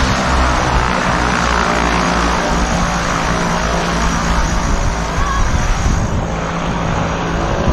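Turboprop airplane's propeller engines running loud and steady on the airstrip after landing, with a steady engine hum that eases off near the end.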